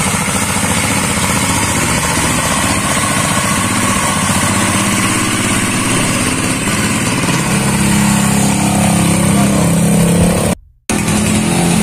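Home-built motorcycle's small stationary-type diesel engine chugging as the bike pulls away on a test ride. Later a steadier engine hum joins in, and the sound drops out for a moment near the end.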